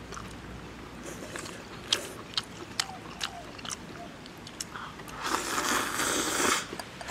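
A man eating instant noodles with chopsticks: small chewing clicks and lip smacks, then, about five seconds in, a long slurp of noodles, the loudest sound.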